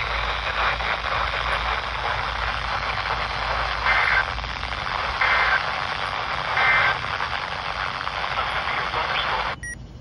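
A handheld NOAA weather radio's speaker hissing with heavy static from a weak, distant signal. Three short two-tone data bursts of a SAME alert header, the start of a Special Marine Warning, come through the static a little over a second apart, about four seconds in. The static cuts off suddenly near the end.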